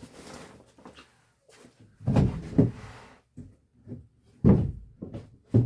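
Four dull knocks and bangs with scuffing in between, from old HVAC return ductwork being worked loose and handled.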